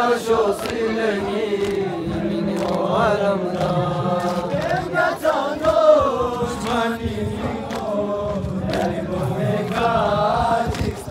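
A crowd of men chanting an Ashura mourning lament together, with sharp beats at a fairly regular pace, roughly one or two a second.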